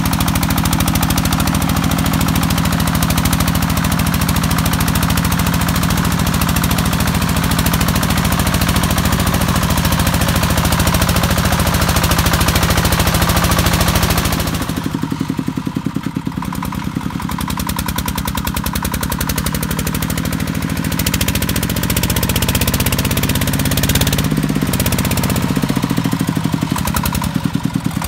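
Single-cylinder diesel engine of a công nông, a two-wheel-tractor log hauler, running under load with a fast, even chugging beat. About halfway through the sound turns duller, and later the engine pitch rises and falls as it works along the rough track.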